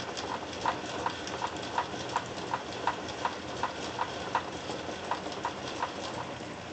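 Rhythmic clip-clop clicking, about three evenly spaced clicks a second like trotting hoofbeats, over a steady hiss.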